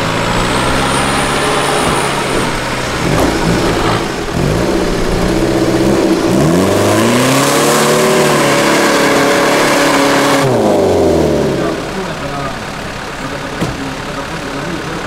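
Off-road competition vehicles' engines revving hard, the pitch climbing and falling again several times. About eleven to twelve seconds in the revving drops away and the engine settles to a quieter, low running.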